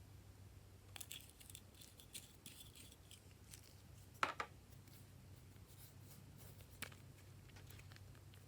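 Glossy slime being pressed and worked by hand, giving quiet scattered crackles and small clicking pops, with one sharper, louder pop about four seconds in and another near seven seconds; a faint low hum underneath.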